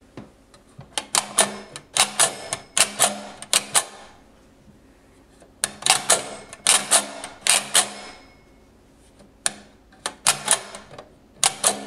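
Wolverine tin toy adding machine being worked by hand: its thin metal number strips are pulled down by a finger and shoot back, making loud, sharp metallic clicks and clacks. Three bursts of rapid clicking with short pauses between, one for each number entered.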